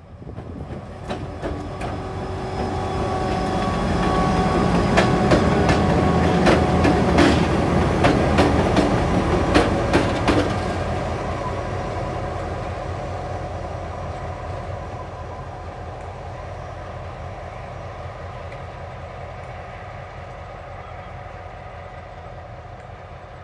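TasRail diesel-electric locomotives 2010 and 2011 running light engine past at close range: the engine sound builds, the wheels click over the rail joints for several seconds at the loudest point, then the sound fades steadily as the locomotives move away.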